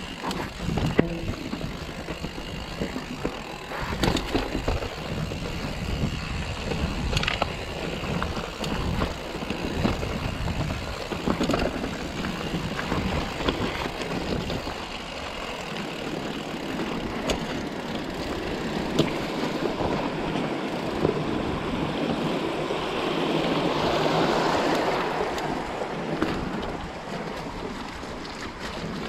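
Mountain bike rolling down a rocky, gravelly trail: tyres crunching over loose stones, with frequent sharp knocks and rattles from the bike as it hits rocks.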